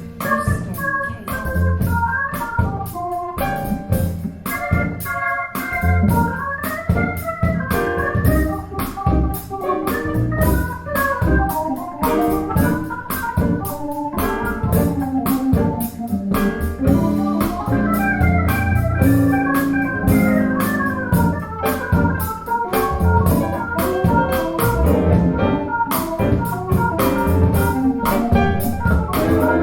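Recorded music played through a pair of Wharfedale Linton Heritage loudspeakers in a room: an instrumental passage with a stepping keyboard melody over a steady bass and drum beat.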